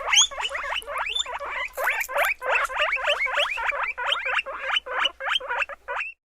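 A group of piglets squealing in rapid, overlapping high-pitched calls, several a second, that stop abruptly about six seconds in.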